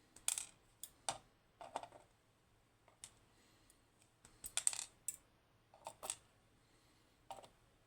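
Small metal parts of a disassembled pin-tumbler lock clicking and clinking as they are handled: a dozen or so sharp, irregular clicks, bunched around the first two seconds and again in the middle.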